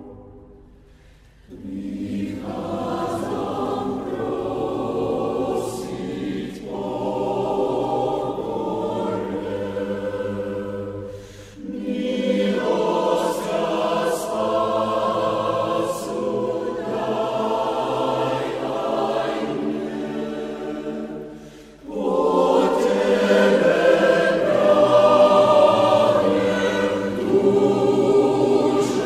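Church choir singing a slow Slovak hymn verse in several long phrases, with a short pause just after the start and brief breaks between phrases. The last phrase is the loudest.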